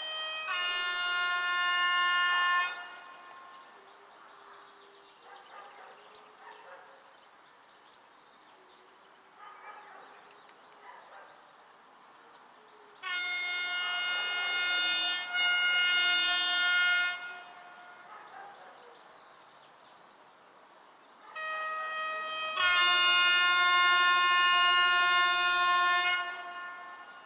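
ET22 electric locomotive's air horn sounding three long blasts, each a few seconds long and about ten seconds apart, the last the loudest; in the first and last a lower tone starts the blast and a higher chord takes over. This is the Rp1 'attention' warning signal given by a train approaching the station.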